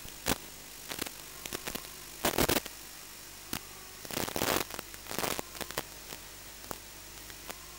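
Steady static hiss from an analog FPV video receiver's audio channel, with a faint low hum. It is broken by irregular crackles and two louder stretches of rushing static, about two and a half and four and a half seconds in.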